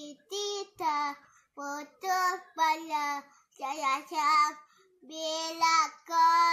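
A young child singing a string of short, held notes; the words are unclear.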